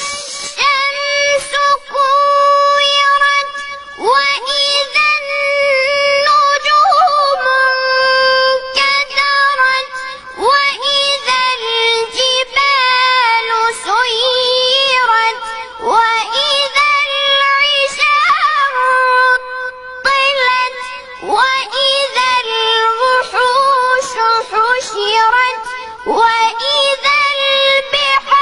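A young child chanting Quranic recitation in a high, melodic voice, with long held notes and ornamented pitch turns, broken by short pauses for breath.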